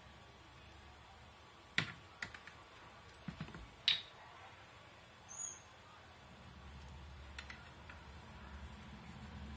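Handling noise: a few scattered sharp clicks and taps as wires and small parts are handled inside an amplifier's metal chassis, the loudest a little under halfway through, over a faint low hum.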